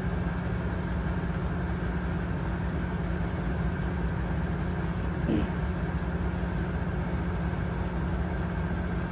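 A steady low rumble, with one brief faint sound about five seconds in.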